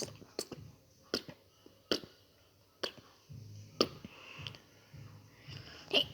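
A series of short, sharp clicks, irregularly spaced about a second apart, over a faint low hum.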